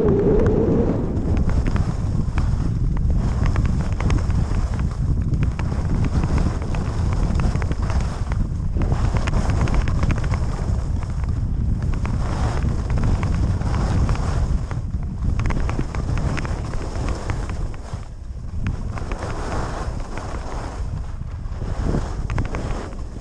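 Wind buffeting the microphone during a fast downhill run, mixed with the hiss and scrape of edges sliding on groomed snow; it grows quieter near the end as the run slows.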